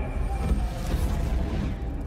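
Documentary background music with a deep, steady low rumble. A brief whoosh swells and fades over about a second in the middle.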